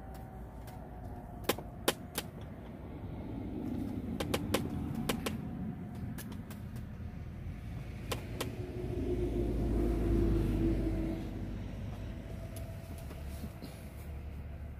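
A road vehicle passing: a low engine rumble that swells to a peak about two-thirds of the way through, then fades. Scattered sharp clicks and ticks come in the first half.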